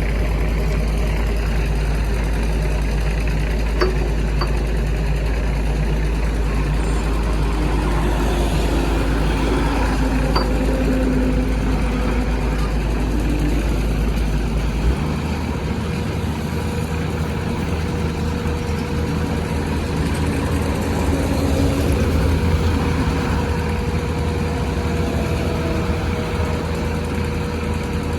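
Excavator diesel engine running steadily. About halfway through, its low note changes abruptly and a steady whine joins it.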